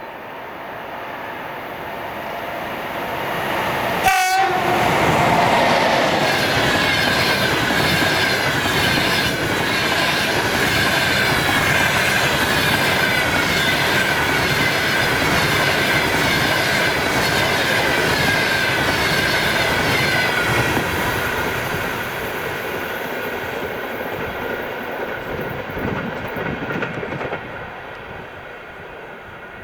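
An EP20 electric locomotive hauling a passenger train passes at speed: the sound builds, the locomotive goes by with a sudden rush about four seconds in, then the coaches' wheels clatter over the rail joints under a steady whine for about fifteen seconds before the train fades away.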